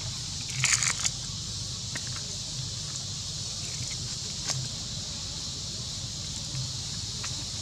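Steady outdoor background hiss with a low hum, a brief crackly rustle a little under a second in, and a single sharp click near the middle.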